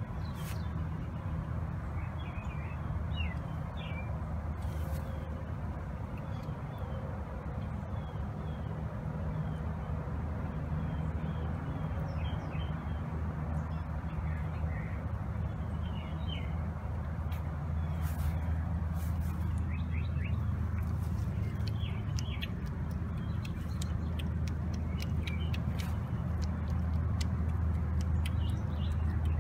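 Small birds chirping now and then over a steady low hum, with small clicks and smacks of kittens and their mother eating wet food from dishes, growing more frequent in the second half.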